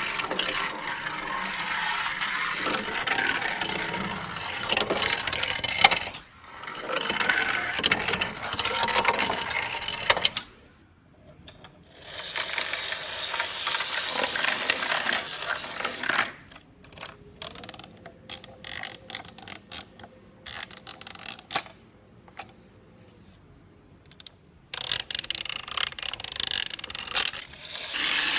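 Plastic toy train playset mechanisms clicking and clattering, the ratchety gear noise of toy trains and playset parts being worked. The sound comes in several separate clips; midway there is a quieter stretch of scattered clicks over a faint steady hum.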